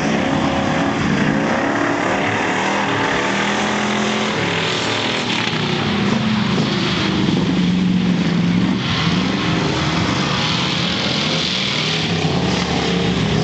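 Rear-wheel-drive bomber-class race cars running on a dirt oval, several engines revving together, their pitches rising and falling as the cars pass.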